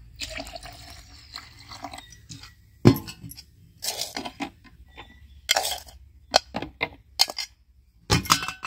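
Milk poured from a metal pot into a plastic blender jar, then a string of sharp clinks and taps as a metal spoon scoops sugar from a metal bowl and knocks it into the jar.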